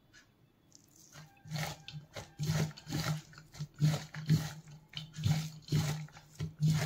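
A bare hand squeezing and mixing shredded cabbage, mashed boiled potato and spices in a steel bowl. Short rustling strokes come about twice a second, starting about a second and a half in.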